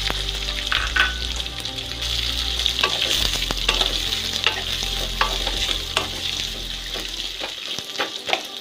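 Chopped onion chunks sizzling in hot oil in a metal wok, stirred with a wooden spatula that scrapes and knocks against the pan with frequent short clicks.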